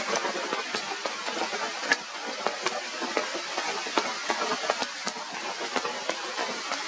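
Heavy rain falling: a steady hiss with many irregular sharp taps of drops striking nearby surfaces.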